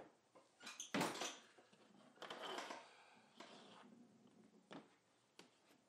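Handling noise as the plastic parts of a disassembled Starlink dish are moved about: a knock about a second in, a longer scraping rustle in the middle, and a few faint clicks near the end.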